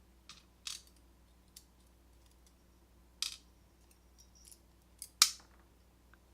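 Small metal clicks and taps from handling a disassembled door-lock cylinder, its pins and tools: about half a dozen sharp clicks at uneven spacing, the loudest about five seconds in.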